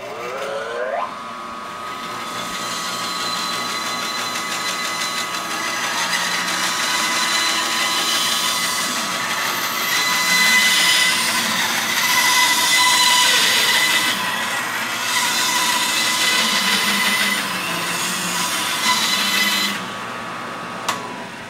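Bandsaw motor whining up to speed in the first second, then running steadily while the blade cuts hickory with a piece of wood pressed against the side of the blade. That side pressure burns the wood and dulls one side of the blade, which makes the blade drift. The cutting sound stops shortly before the end.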